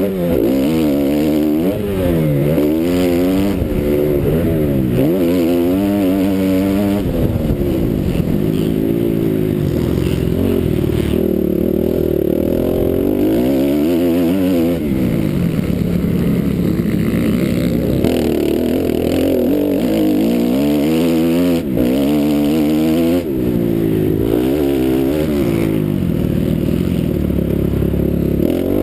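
A 450-class motocross bike's engine revving hard and dropping off again and again, its pitch climbing through each gear and falling as the throttle is rolled off.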